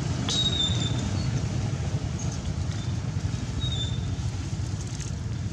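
Steady low rumble of background noise, with a few faint, short high-pitched chirps.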